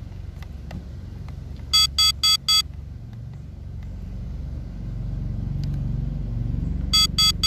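Drone's low-battery alarm: a quick run of four high electronic beeps, repeated near the end. Under it, a low rumble grows louder from about halfway.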